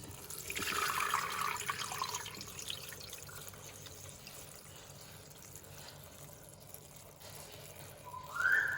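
Water being poured into a Thermomix bowl fitted with its simmering basket. It is loudest in the first couple of seconds, then thins to a quieter steady trickle. Near the end comes a short tone that rises and then falls.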